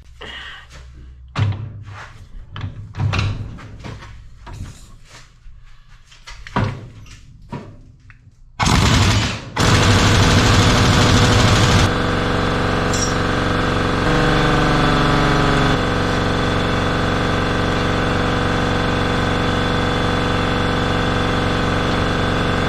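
Metal tools clanking and knocking as a socket and adapter are fitted. About eight seconds in, a pneumatic impact wrench starts with a short burst, then hammers steadily and loudly for the rest of the time, working the large rod nut loose on a hydraulic tilt cylinder.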